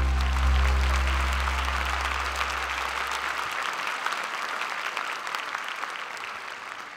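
Audience applauding at the end of a dance performance, while the song's final sustained chord dies away over the first few seconds. The applause slowly fades toward the end.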